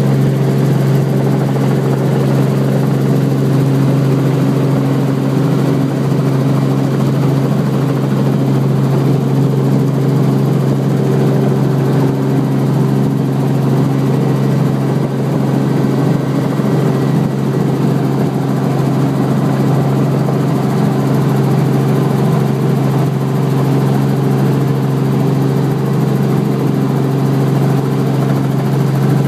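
Helicopter's rotor and engine running steadily: a loud, unbroken drone built on a strong low hum.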